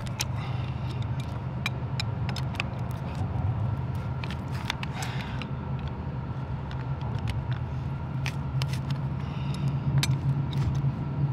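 Spanners clinking and scraping on a stainless mechanical (swageless) rigging terminal as it is tightened onto wire rope: many scattered sharp metal clicks. A steady low hum runs underneath.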